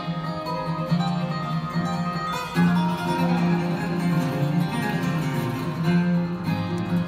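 Two acoustic guitars playing an instrumental passage with picked notes over a strummed low end, with no singing; the playing gets louder and fuller about two and a half seconds in.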